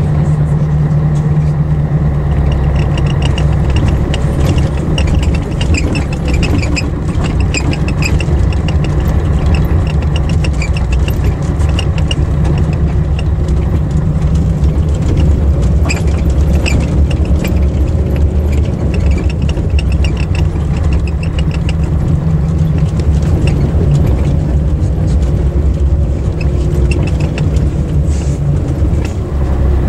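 Diesel engine of a Scania-chassis Ikarus EAG 395 coach running steadily, heard from inside the bus. Light jingling rattles come and go over the engine sound, most in the first half.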